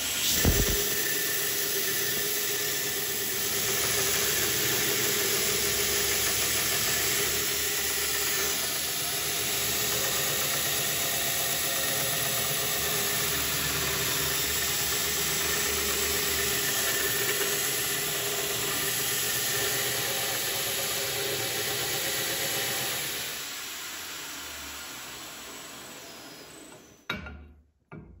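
Homemade 2x72 belt grinder running with a rusty steel hammer head pressed against the abrasive belt: a steady, loud grinding hiss with a squealing edge. Over the last few seconds the grinding dies away.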